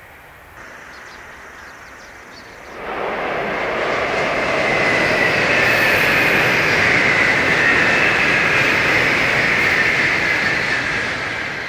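A Tokaido Shinkansen high-speed train passing at speed on a viaduct. Its rushing noise comes in suddenly about three seconds in, holds loud for several seconds, then begins to fade near the end.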